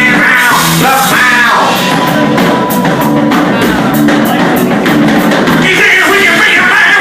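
A band playing loud rock-style music, driven by a drum kit with steady, evenly spaced cymbal hits.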